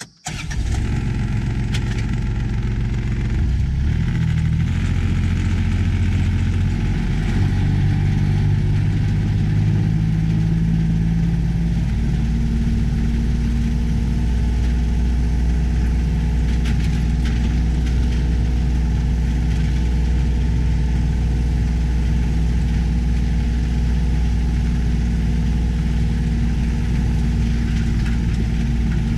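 A vehicle's engine running steadily. Its pitch steps up and down over the first dozen seconds, then holds even.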